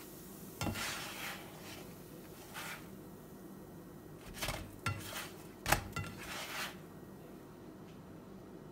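A kitchen utensil knocking and scraping against a T-fal nonstick frying pan as a cooked naan is lifted out. There is a knock about half a second in and a few short scrapes, then a run of clinks and scrapes in the second half, the loudest a sharp clink.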